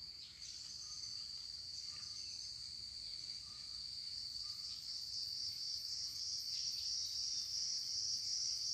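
Insects calling in a steady, high-pitched, unbroken drone that grows slightly louder over several seconds.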